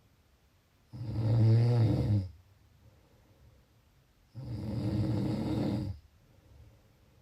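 A person snoring in sleep: two loud snores, each about a second and a half long, roughly three and a half seconds apart, with faint breathing between them.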